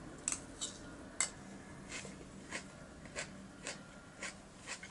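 A person chewing beans on toast into a close microphone: a couple of sharp clicks in the first second or so, then soft, even mouth clicks about twice a second.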